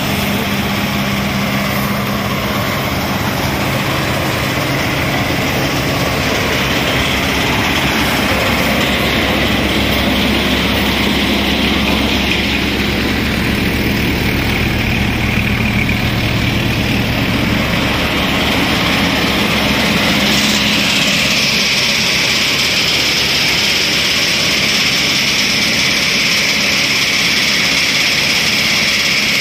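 Tractor-driven groundnut thresher running steadily under load, the tractor engine's drone mixed with the whirr of the threshing machinery. The higher-pitched whirr grows louder about two-thirds of the way through.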